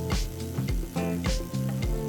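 Background music with a steady beat, a low kick about twice a second under sustained chords.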